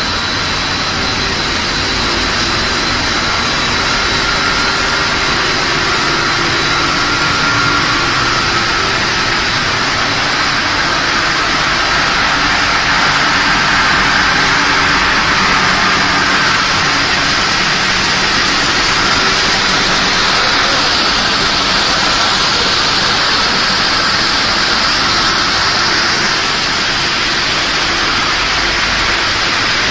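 Puffed-snack extrusion line machinery running: a steady, loud mechanical hiss and hum from the line's motors and conveying equipment, with faint steady whining tones in it.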